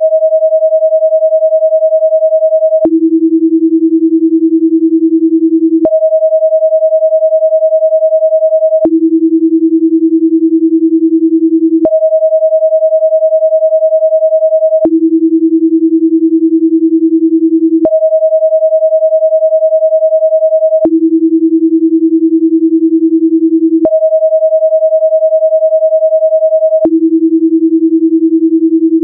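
Synthetic sine tones of a binaural-beat track, steady and even, switching every three seconds between a higher and a lower pitch about an octave apart, with a faint click at each change. The left and right channels are set 10 Hz apart so that they beat, a frequency-following signal meant to draw the brain toward a relaxed 10 Hz alpha state.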